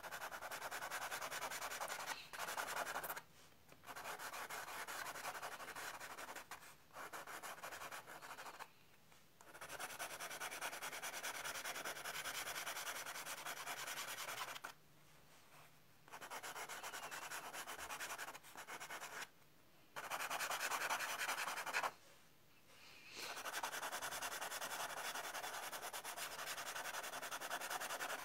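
A peach-coloured pencil shading on tan card: a dry, scratchy rubbing that comes in stretches of a few seconds, broken by short pauses as the pencil lifts.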